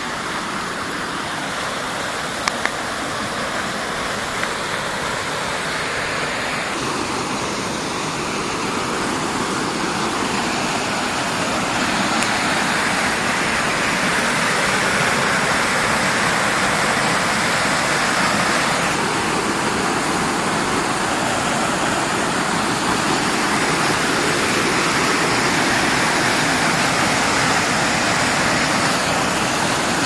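Lower tier of the Tahkadon mountain waterfall: a steady roar of water pouring over rocks. It grows gradually louder over the first dozen seconds, then holds.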